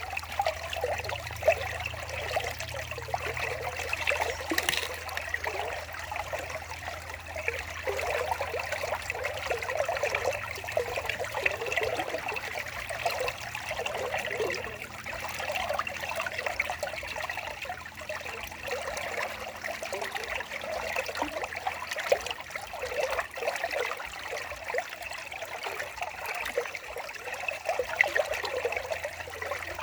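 Water trickling steadily, a continuous bubbling flow with small irregular splashes.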